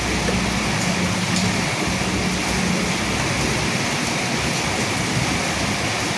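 Steady, heavy rainfall hissing evenly. A low rumble of thunder dies away under a second in.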